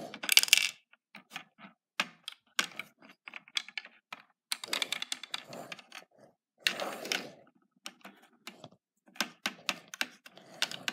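Small plastic Lego pieces and minifigures clicking and clattering as they are handled and set onto a Lego baseplate: scattered sharp clicks, with denser clattering bursts about 5 s and 7 s in.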